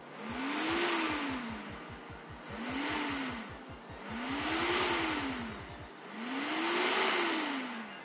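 Computer cooling fan on a homemade transistor speed controller, spinning up and slowing back down four times as its variable resistor is turned up and down: a whir and air rush that rise in pitch and fall again each time. The controller is regulating the fan speed properly.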